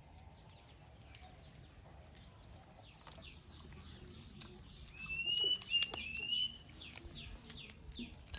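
Many birds chirping in quick short falling notes, with a louder held whistling call about five to six and a half seconds in, and a few sharp clicks.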